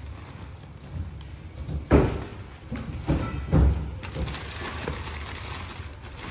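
Dull thumps and knocks of cardboard boxes being bumped and pushed, the loudest about two seconds in and a few more soon after, with thin plastic bags rustling and crinkling between them.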